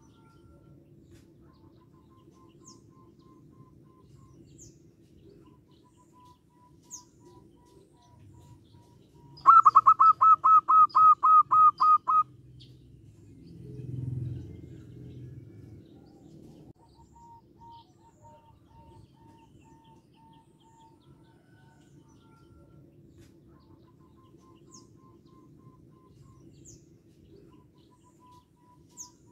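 Zebra dove (perkutut) calling: a loud run of about a dozen quick, clipped notes lasting about three seconds, a third of the way in. Fainter runs of similar notes come and go in the background, with brief high chirps of small birds and a low swell just after the loud run.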